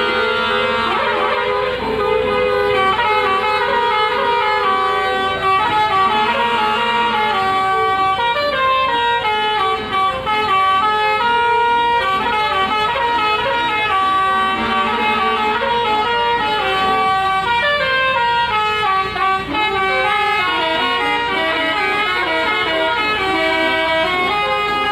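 Telolet musical horns on Indonesian buses playing their stepped multi-note jingles without a break, several horns sounding over one another.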